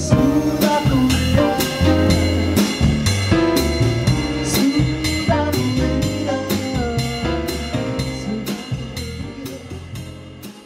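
Live jazz trio of piano, upright double bass and drum kit playing a samba groove, with steady drum and cymbal strokes over piano chords and a walking bass line. The music gradually fades out over the last few seconds.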